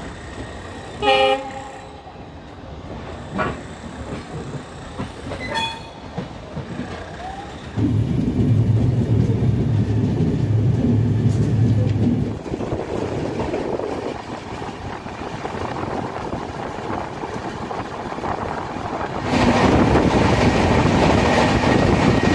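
Passenger train pulling out of the station: a short horn toot about a second in, then the rumble and clatter of the moving train. A low steady hum lasts a few seconds in the middle, and the rolling noise grows louder near the end.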